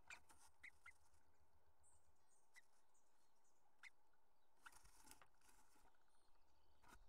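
Near silence inside a nest box, with faint scattered scratches and rustles as a female bluebird moves about on the dry grass nest and flutters out.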